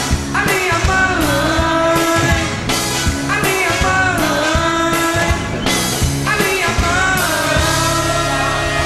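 Live band music with a brass section of trombone, trumpet and saxophone playing over a steady drumbeat, with singing.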